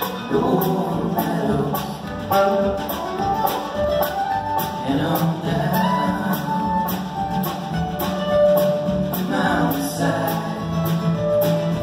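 A live acoustic string band playing a song: banjo, mandolin, acoustic guitar and upright bass, with a sung vocal line over a steady rhythm.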